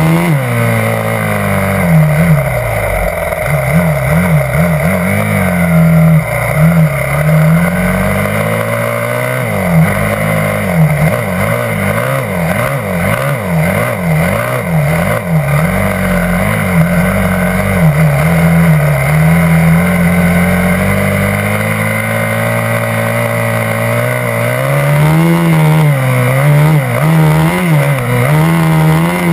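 Yamaha YZ250F dirt bike's single-cylinder four-stroke engine heard up close while trail riding. Its pitch rises and falls as the throttle opens and closes, with a run of quick throttle blips about a third of the way in.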